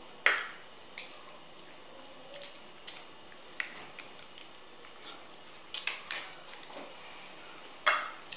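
Cooked crab shell cracking and snapping as it is broken apart by hand, a series of sharp clicks at irregular intervals, the loudest just after the start and two more in the second half.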